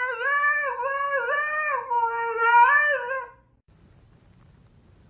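Siberian husky howling in a long, continuous howl whose pitch wavers up and down; it cuts off abruptly about three and a half seconds in, leaving only faint low background noise.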